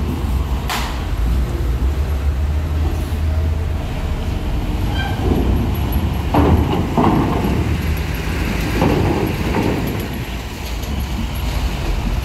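Large diesel coach bus running as it rolls off a ferry ramp and passes close by, a steady low engine rumble. A few louder rushes of noise come through about five to seven seconds in and again around nine seconds.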